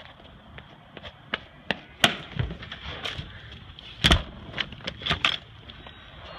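An exterior door being shut and opened again: scattered knocks and clicks, with the loudest thud about four seconds in and a quick run of knob-and-latch clicks about a second later.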